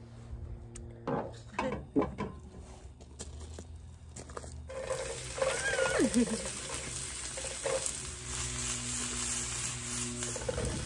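Onions frying in a pan on a portable gas stove: a steady sizzle that starts suddenly about five seconds in. Before it come a few sharp clicks and knocks.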